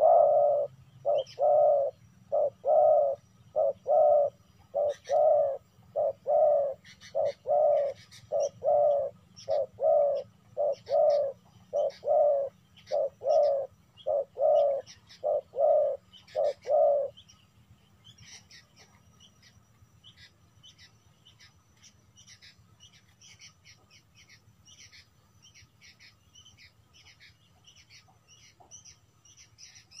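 Spotted dove giving a rapid series of short, loud coos, a little under two a second, that stop abruptly a little past the middle. Faint high chirping of small birds continues afterwards.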